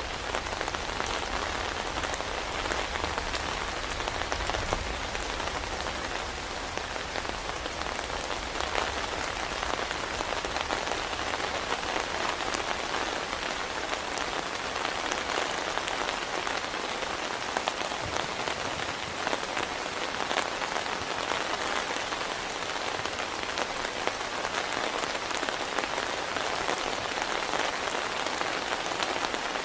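Heavy rain falling steadily, with many individual drops ticking through it. A low rumble dies away over the first few seconds.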